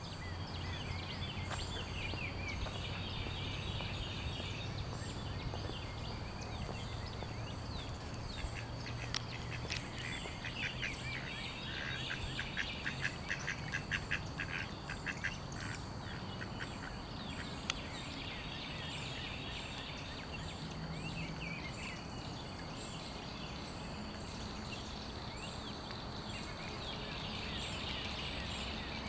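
Mallard ducks quacking in several short bursts, with a quick run of quacks about halfway through.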